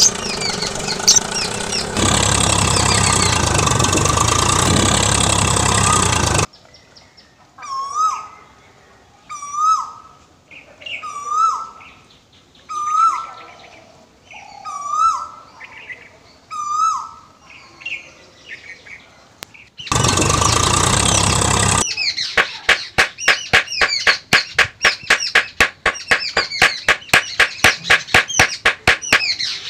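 Bird-call sound effects laid over the footage, in abruptly cut sections. First a loud rushing noise, then a single bird repeating one short hooked call about every second and a half, then a brief burst of loud noise and fast, dense chirping of several notes a second.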